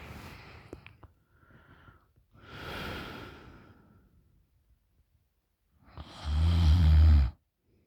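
A sleeping woman's breathing through an open mouth: two soft, airy breaths, then one loud, deep snore about six seconds in, lasting about a second.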